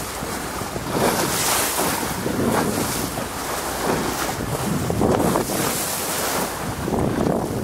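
Wind buffeting the microphone over the wash of choppy sea waves, rising and falling in gusts.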